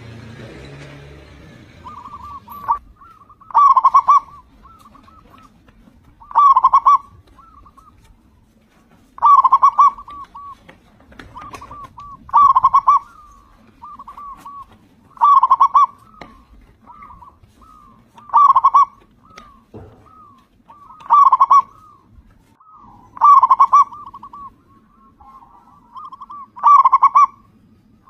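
Zebra dove (perkutut) singing: the same cooing phrase over and over, soft quick coo notes leading into a loud, rolling coo, about every three seconds, nine times.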